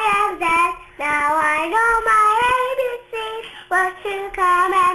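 A young girl singing a song with no accompaniment, holding notes in short phrases broken by brief pauses about a second in and again around three seconds.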